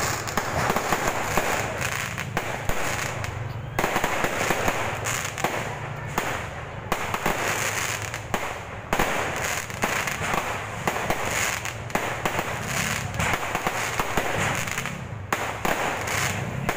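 Aerial fireworks going off, a dense run of sharp pops and crackles in quick succession.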